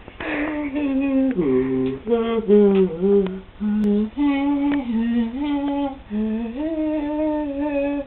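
A voice sings a slow, wordless tune in long held notes that step up and down, with short breaths between phrases.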